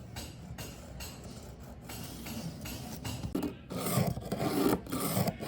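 Hand rasping or sanding on wood: repeated back-and-forth abrasive strokes, about two to three a second, getting louder over the last couple of seconds.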